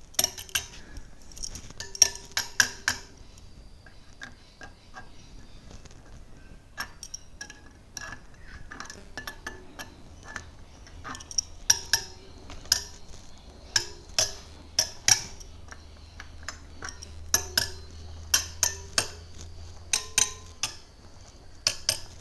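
Spokes of a Sur Ron wheel being tapped one after another with a metal tool: irregular sharp metallic pings, often in quick runs of two to four. Some ring briefly at different pitches. The ring tells the spoke's tension: a tight spoke rings, a loose one sounds dead.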